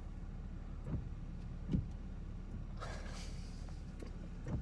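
Steady low rumble inside a car with its engine idling. A few soft thumps come through, along with a brief rustle about three seconds in.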